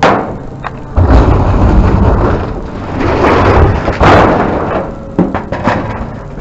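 Scrap metal junk being thrown and crashing down: a sharp bang at the start, then two longer loud crashing, rumbling spells, one about a second in and one about four seconds in.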